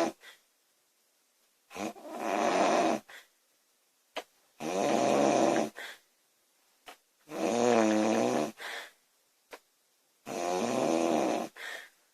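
Woman snoring loudly in a steady rhythm, one long snore about every three seconds, each lasting over a second and starting with a short catch, some with a buzzing pitched rattle.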